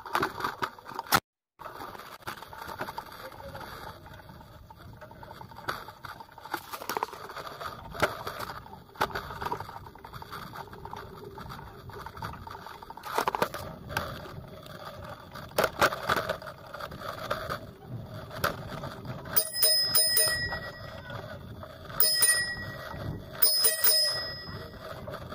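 A bicycle bell is rung in three quick trills near the end. Under it, the bike rattles and knocks over a bumpy dirt lane.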